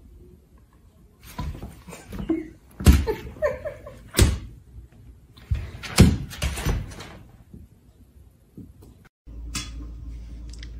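Thuds and knocks of a cat and a large dog play-fighting on a wooden floor, several of them loud. Near the end a popcorn machine's steady hum starts.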